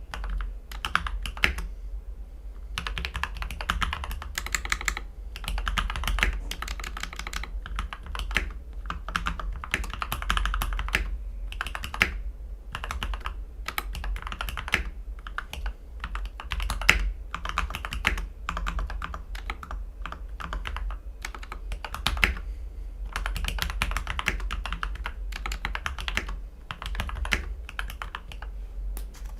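Typing on a CIY X77 mechanical keyboard with Gateron Ink V2 Black linear switches, lubed with GPL 205 and filmed, on an aluminium plate with a three-layer tape mod and PE foam mod. The keystrokes come in fast runs with short pauses between them.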